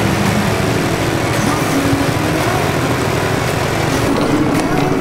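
Small go-kart engine running steadily on an ice karting track.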